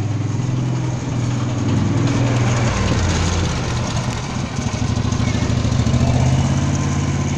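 Minneapolis-Moline GB tractor's engine idling steadily with a low, even chug, heard up close.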